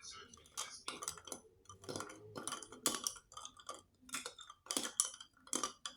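Cutlery clinking and tapping against a plate or dish in a string of sharp, irregular clicks, about two a second.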